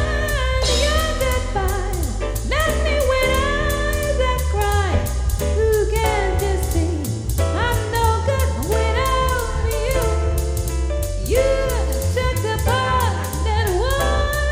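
Music with singing over a steady beat and heavy bass.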